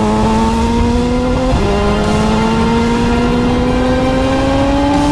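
Crighton CR700W rotary-engined superbike accelerating hard. The engine note climbs steadily, drops sharply at an upshift about a second and a half in, then climbs again through the next gear.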